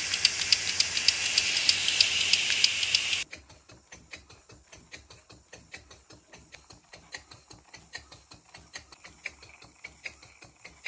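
Small engines running with a quick, even clicking of about five beats a second. For the first three seconds a steady hiss runs with the clicks; then the sound cuts abruptly to a quieter engine clicking at a similar pace.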